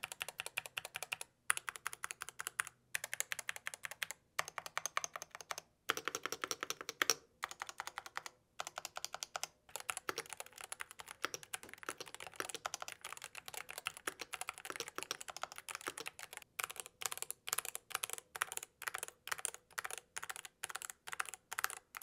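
Typing on an Epomaker GK75 75% mechanical keyboard with Gateron optical yellow switches and a foam- and silicone-dampened case: rapid runs of keystroke clacks, broken by brief pauses in the first half, then steadier continuous typing.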